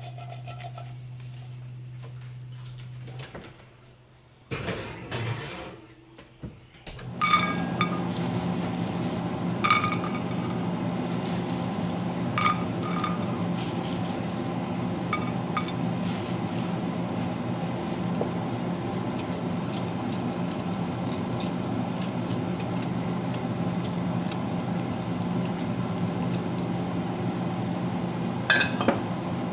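Cashews set down by hand into a cast-iron skillet, each landing with a sharp click and a short metallic ring, about half a dozen times. Under them runs a steady mechanical hum, like a kitchen appliance fan.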